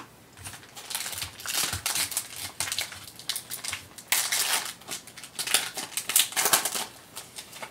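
A foil trading-card pack crinkling in the hands and being torn open, an irregular run of crinkles and rips.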